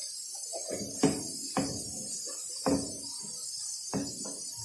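Background music with about four loud drum-like strikes, over a steady hiss of chicken and whole spices frying in oil in a wok as they are stirred.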